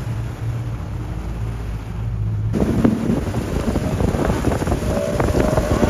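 Outboard motor on a jon boat running at speed across the water, with wind noise on the microphone. About two and a half seconds in the sound cuts abruptly to a louder, noisier pass, where the engine's whine rises slightly over the rush of spray.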